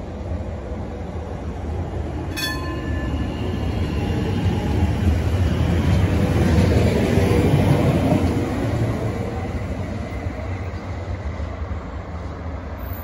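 Sheffield Supertram tram running past on its rails, the rumble and wheel-on-rail noise building to a peak as it goes by and then fading as it moves away. A sharp metallic clank with a short ring sounds about two seconds in.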